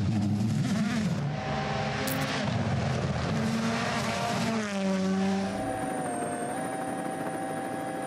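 Race car engine sound effect revving, its pitch rising and falling repeatedly, with a long downward glide about halfway through.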